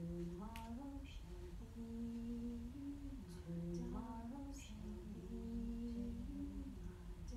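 A woman humming a slow, wordless melody, each note held for about half a second to a second and moving up and down in small steps.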